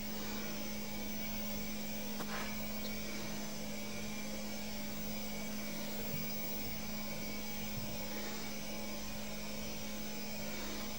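A steady low hum with an even hiss, and a faint tap about two seconds in.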